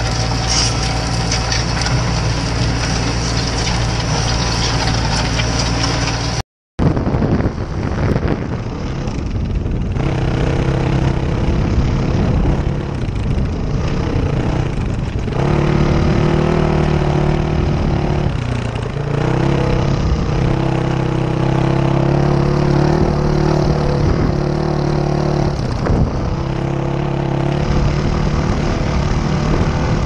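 Tractor engine running steadily under load, pulling a working potato harvester, until it cuts off abruptly about six seconds in. Then a dirt bike's engine, its pitch rising and falling with the throttle and dipping briefly about two thirds of the way through.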